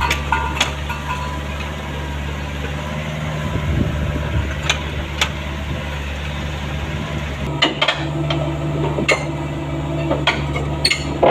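Caterpillar 305.5E2 mini excavator's diesel engine running steadily, with sharp metallic clanks and knocks from the machine scattered through, coming thicker near the end.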